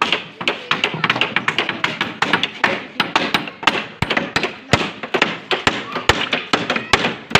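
Hammer knocking on wood and nails in quick, irregular taps, several a second, with a few heavier thuds in the second half.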